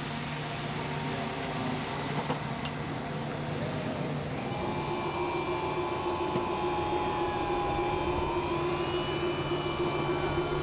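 Model hovercraft's electric fans running with a steady, jet-like whining rush. A set of higher whining tones joins about four and a half seconds in, and one tone wavers in pitch.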